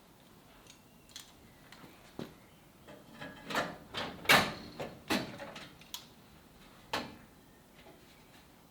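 A run of irregular short knocks and clatters, several close together around halfway through with the loudest about four seconds in, then one more near the end.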